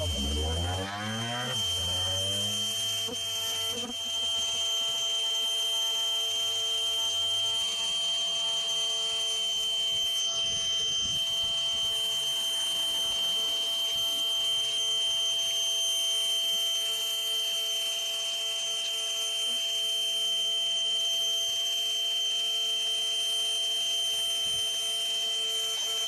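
Bee vacuum running with a steady motor whine as its hose draws bees off an exposed colony.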